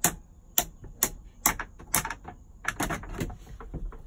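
Dashboard toggle switches on an aftermarket switch panel being flicked, a string of sharp clicks about half a second apart, with a quicker cluster near the end.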